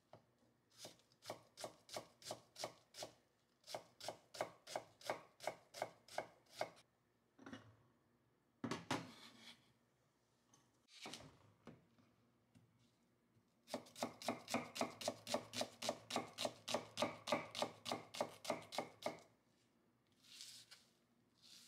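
Chef's knife chopping onion on a wooden cutting board: runs of steady, even strokes, the last and longest run faster, about five a second, with a brief scraping sound midway.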